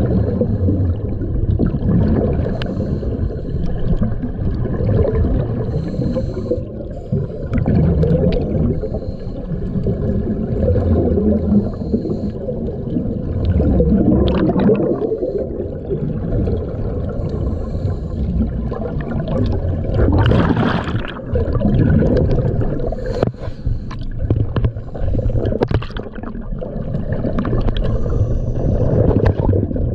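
Underwater gurgling and rumbling of scuba divers' exhaled air bubbles and regulator breathing, heard through an underwater camera housing, with surges of bubbling every few seconds.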